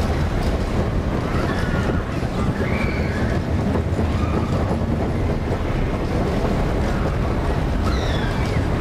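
Roller coaster ride heard from the train: steady wind rushing over the microphone with the rumble of the train on its steel track, and riders' voices shouting now and then.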